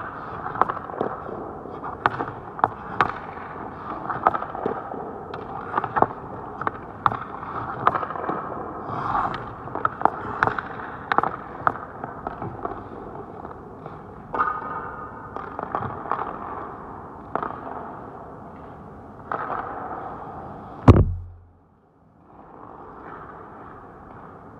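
Hockey sticks and pucks clacking on the ice, with sharp reports echoing around an ice rink over a steady hum of rink noise. A much louder hit comes near the end, then the sound cuts out briefly.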